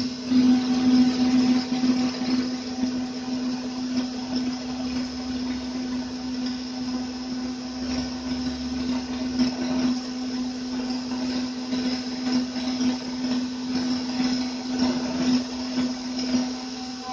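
DIY CNC router spindle driving a 2 mm single-flute end mill through aluminium at 14,000 rpm, a steady whine with a strong low tone and gritty cutting noise as it mills the hex pockets.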